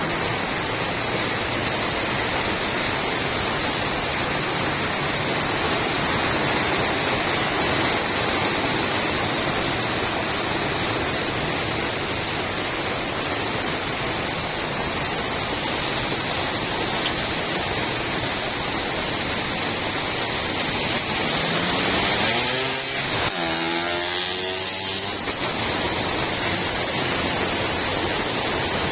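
Steady rain falling on a street, an even hiss. About three quarters of the way through, a motor sound rises in pitch over a few seconds, then fades back into the rain.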